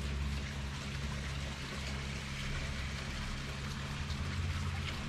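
Steady rain falling and pattering, with a low steady hum underneath.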